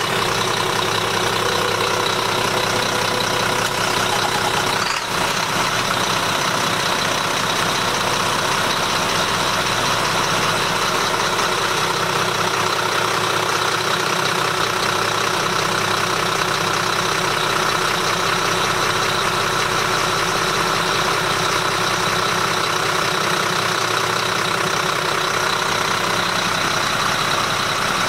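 Inboard marine diesel engine idling steadily, heard inside the yacht's enclosed engine room, just after being started.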